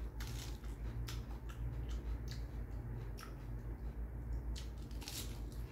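Raw lettuce being chewed and torn by hand, giving irregular crisp crunches over a low steady hum.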